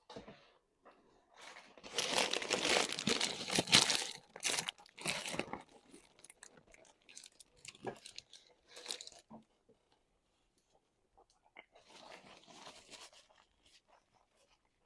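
Close-up eating of a Crunchwrap: loud crackling crunches from biting into the crisp shell for a few seconds, then lighter chewing clicks, and another softer run of crunching near the end.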